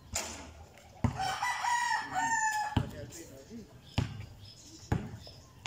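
A rooster crowing once, a call of about a second and a half starting about a second in. Several sharp thuds of a basketball bouncing on the court are spaced about a second apart.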